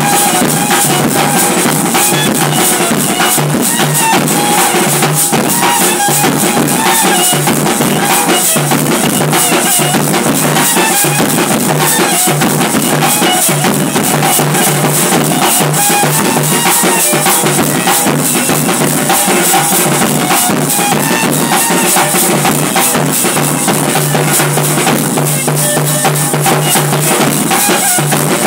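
Street band playing loudly: fast, steady beats on side drums and a large steel-shelled bass drum under a wavering melody from a wind instrument.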